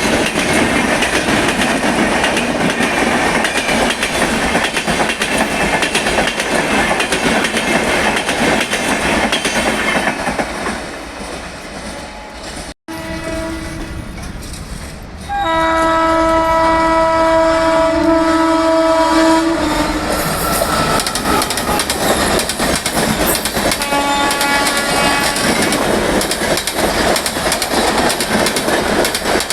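A passing Indian Railways train, wheels clattering over the rail joints, fades away. Then a locomotive's twin-tone horn sounds: one short toot, a long blast of about four seconds as loud train noise builds again, and another short blast a few seconds later.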